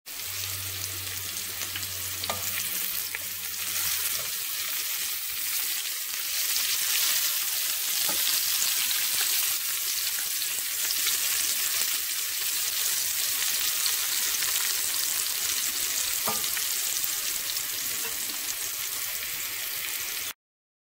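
Chopped celery sizzling steadily as it stir-fries in oil in a nonstick pan, stirred with a wooden spatula. A low hum sounds under it for the first few seconds.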